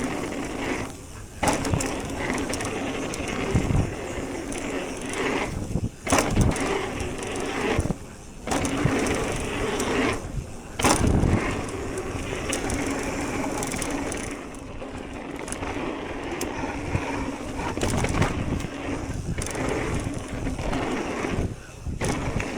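Propain e-mountain bike riding a dirt trail: steady rush of tyres and air with clunks and rattles from the bike over bumps, and a few brief moments where the noise drops away.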